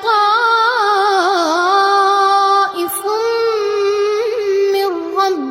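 A boy reciting the Quran in melodic tajweed chant: one voice drawing out long, ornamented notes that waver in pitch, with a short break for breath about halfway through.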